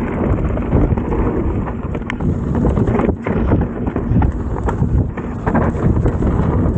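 A mountain bike being ridden downhill over rough trail, its frame and wheels rattling and knocking in quick irregular clicks. Strong wind noise buffets the microphone.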